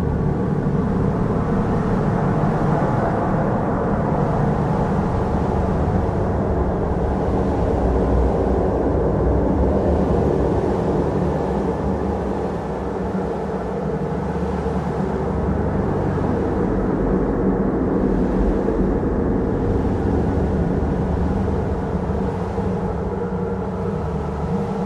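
Wind ambience: a steady, low rush of wind that swells and eases in slow gusts.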